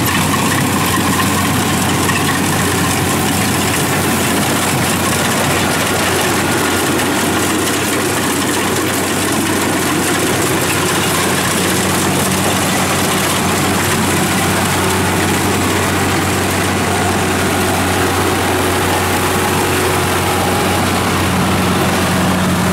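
Rice combine harvester's engine running steadily under load as it cuts and threshes standing rice: a constant low hum under dense mechanical noise.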